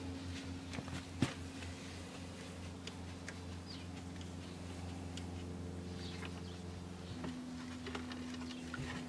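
Socket wrench turning on a mini excavator's track-tension adjuster, with scattered metal clicks and one sharp click about a second in, over a steady low engine-like hum whose pitch steps up about seven seconds in.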